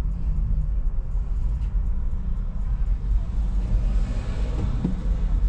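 Steady low rumble of a car driving slowly, heard from inside its cabin, with a broader hiss swelling up and fading again about four seconds in.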